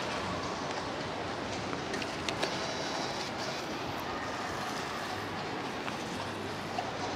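Steady outdoor street ambience: an even wash of noise with a few light clicks and knocks around the middle.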